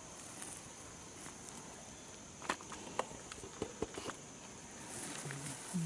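Footsteps crunching through pine straw and twigs on a forest floor, with a cluster of sharp snaps and cracks about halfway through, over a steady high hum.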